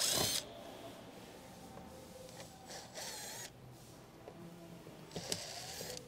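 Milwaukee M18 cordless driver spinning screws out of a metal furnace access cover, in three short whirring bursts: one at the start, one about three seconds in, and one near the end.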